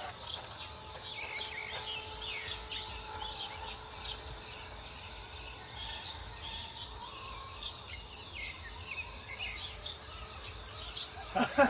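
Birds chirping repeatedly in short, high calls over low, steady outdoor background noise.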